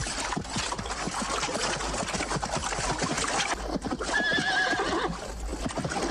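Several horses moving about with hooves clattering, and one horse giving a wavering whinny lasting under a second about two-thirds of the way through.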